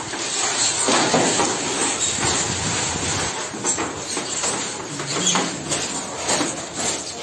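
Plastic underfloor-heating pipe being dragged across and pressed into polystyrene nodal floor panels: a steady scraping, rustling noise with scattered small clicks.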